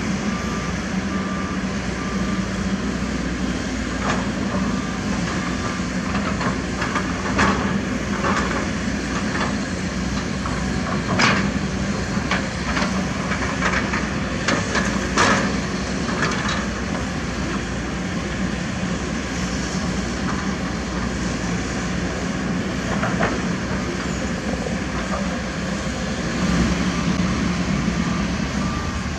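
Heavy construction machinery running steadily: the diesel engines of excavators, with several sharp metal clanks and knocks through the middle. An intermittent electronic warning beep sounds near the start and again near the end.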